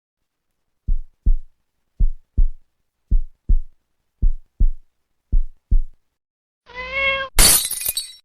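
Heartbeat sound: five double thumps, lub-dub, about once a second, then a cat meowing near the end, followed at once by a brighter, noisier sound.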